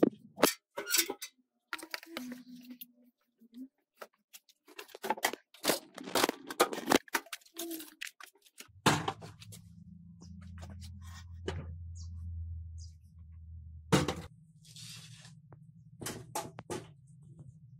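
Handling noise from a computer tower case being picked up and moved among clutter: a quick run of knocks, clatters and rustles. About halfway a low steady hum comes in, and a few seconds later there is one loud knock as the case is handled on the table.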